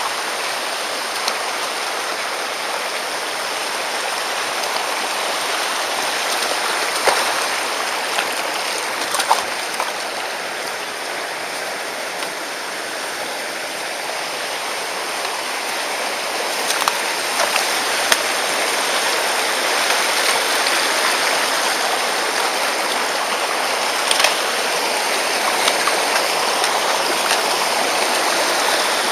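Mountain stream rushing steadily over rocks, with a few short knocks scattered through it.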